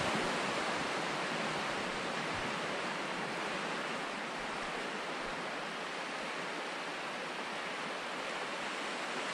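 Surf washing onto a sandy beach: a steady, even hiss of small waves breaking at the shoreline.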